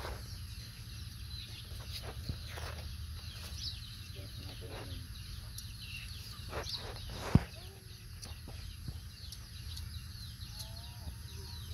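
Outdoor ambience with a steady low rumble and scattered faint, short animal or bird calls, with a single sharp click about seven seconds in.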